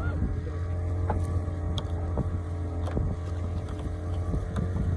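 A fishing boat's motor running steadily with a low drone. Light clicks and knocks come from a gill net and its floats being handled in the boat.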